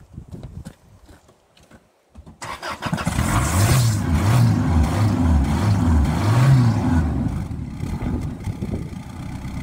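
Car engine with its tailpipe filled with water, catching with a sudden burst about two and a half seconds in and then revved up and down several times as water and vapour spray out of the exhaust.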